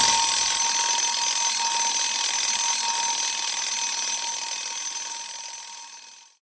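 An alarm bell ringing continuously, loud and steady, fading away and stopping shortly before the end.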